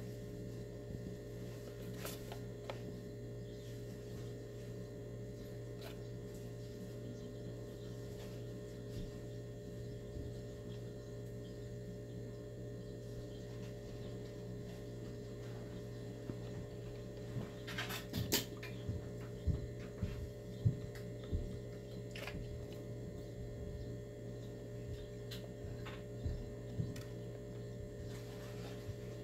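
Steady low electrical hum, mains-type, running under everything. A cluster of short clicks and low knocks comes about two-thirds of the way in, with a few more scattered near the end.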